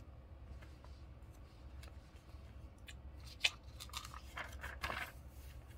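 Faint handling sounds of a paper journal being lowered and held: pages rustling with small crisp clicks over a low steady room hum. A few soft, breathy sounds come between about three and five seconds in.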